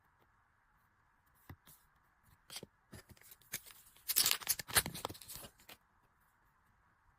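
Merchandise packaging being handled: a few scattered light taps and clicks, then about two seconds of dense rustling and crinkling near the middle.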